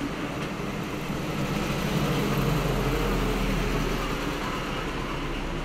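A steady low machine hum that swells a little through the middle.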